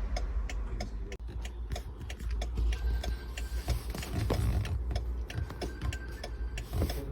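BMW E60 hazard warning flasher ticking steadily and evenly over a low hum. The hazards are left on to keep the car's modules awake during diagnosis.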